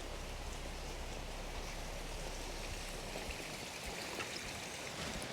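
Steady rush of running water from a stream or small waterfall.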